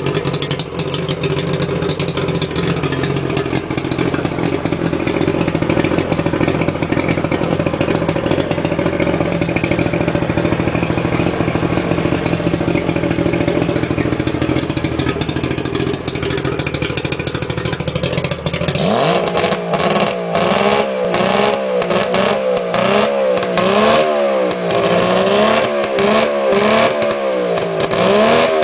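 1989 Mercury 90 hp two-stroke outboard motor running steadily on a test tank. About nineteen seconds in its revs rise, and it is then revved up and down about once a second.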